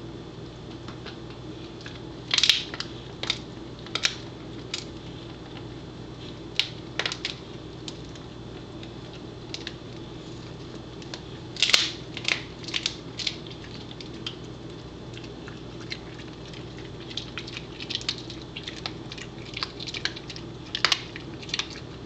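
Pembroke Welsh Corgi chewing a hard beef tendon chew: irregular crisp crunches and cracks as she bites down, coming in bursts with pauses between. A steady low hum runs underneath.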